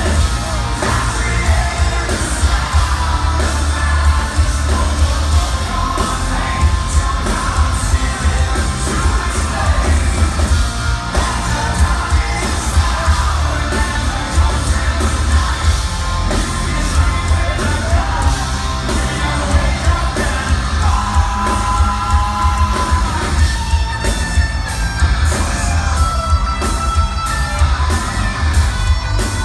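Hard rock band playing live, with heavy distorted guitars, pounding drums and bass, and a lead singer singing and yelling over them.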